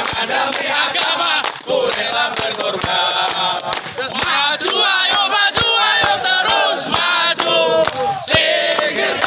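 A crowd of men chanting in unison, with a shouting voice among them, over steady rhythmic hand-clapping at about two claps a second.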